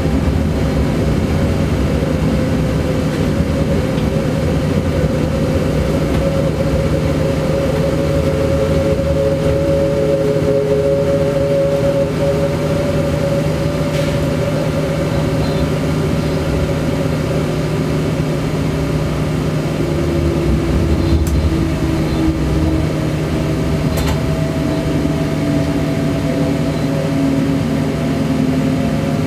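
Electric train heard from inside the driver's cab: a steady running hum and rumble with whining tones from the traction equipment that slowly drop in pitch as the train slows, with a few faint clicks.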